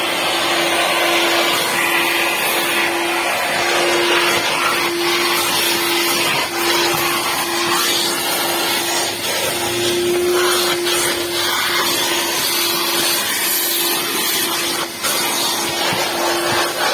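A small electric motor running steadily, a rushing air noise over one constant hum.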